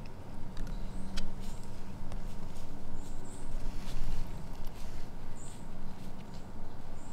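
Outdoor woodland ambience: light rustling and scattered small ticks, with a few brief high-pitched chirps every second or two.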